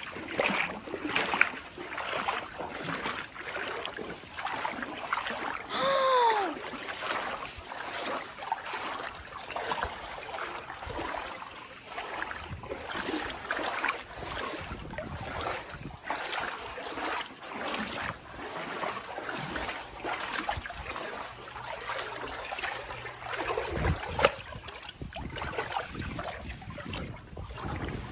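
Creek water splashing and trickling, with irregular splashes throughout. About six seconds in, a short call falls in pitch.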